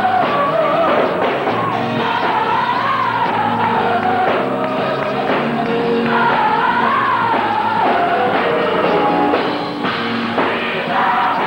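Student gospel choir singing with instrumental accompaniment, the melody rising and falling in sung phrases over sustained low notes.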